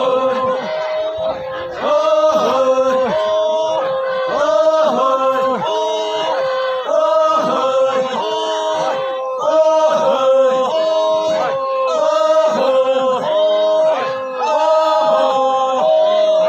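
A group of mostly male voices chanting a traditional song in unison, unaccompanied, a short phrase of held notes repeated over and over.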